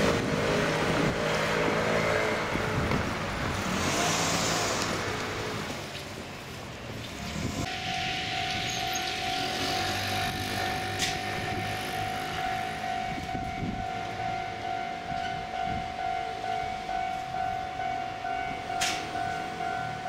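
Japanese railway level-crossing warning bell starting about a third of the way in, a steady repeating electronic ding at about two strokes a second: the signal that a train is approaching and the barriers are lowering. Before it, street traffic and wind noise.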